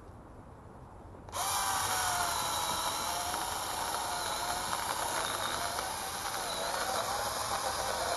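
Dingmo 4-inch 21 V battery-powered mini chainsaw switching on about a second in and running with a steady high whine of its motor and chain, the pitch wavering a little.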